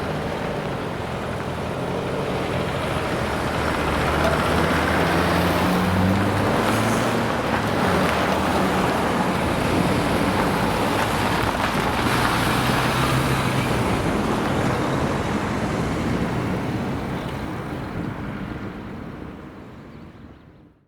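Vehicle rumble with a low engine hum at a railway level crossing, swelling over several seconds and then fading away near the end.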